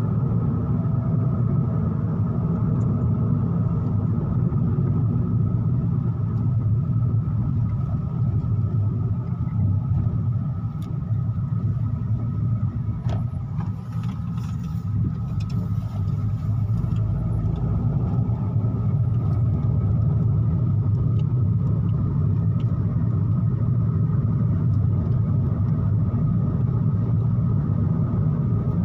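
Steady low rumble of a car's engine and tyres on the road, heard from inside the cabin while driving, easing slightly for a few seconds around the middle.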